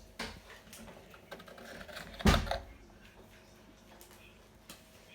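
Small clicks and taps from plastic parts being handled, with one louder thump about two seconds in, while the lint filter of a Hotpoint front-loading washing machine is worked on.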